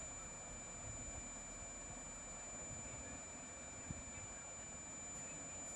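A steady, high-pitched electronic tone holds unbroken over a faint hiss.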